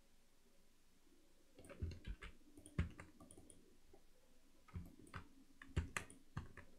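Computer keyboard keys and mouse buttons clicking as shortcuts are pressed. There are a dozen or so sharp clicks in two clusters, one starting just under two seconds in and another from nearly five seconds in.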